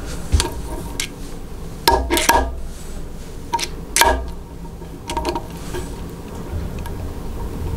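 Wowstick electric screwdriver's aluminium body clinking and knocking against its round aluminium stand as it is handled: a string of light metallic clicks, the sharpest about two and four seconds in.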